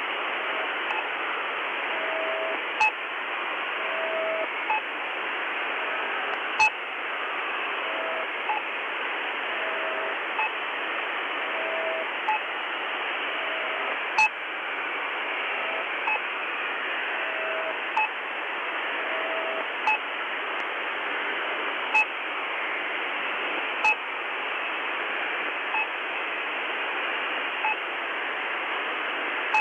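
Shortwave 'New Pip' channel marker on 6218 kHz, received in USB on a Tecsun PL-330: a short pip about every two seconds over steady radio static. A faint, broken lower tone comes and goes underneath through the first two-thirds.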